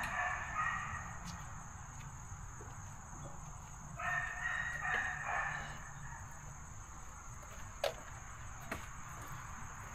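A rooster crowing once about four seconds in, lasting under two seconds. Near the end come a couple of light metal clicks from the aluminium poles of a bimini top frame being carried.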